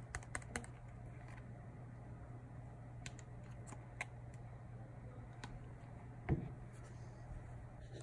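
Light clicks and taps of hard plastic turn signal light housings and a screwdriver being handled and set down on a rubber mat. There is a quick cluster at the start, a few single clicks later, and one louder knock about six seconds in, over a steady low hum.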